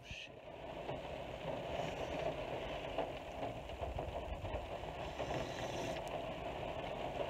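Steady rain falling on a car's roof, heard from inside the cabin, with a low rumble underneath.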